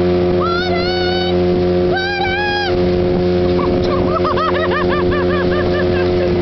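Motorboat engine running steadily underway, with a young woman's voice over it: two long held sung notes, then a quick run of short repeated notes.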